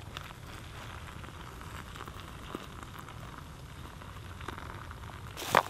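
Water poured from a metal cook pot into a freeze-dried meal pouch, a steady splashing trickle. Near the end the foil-lined pouch crinkles loudly.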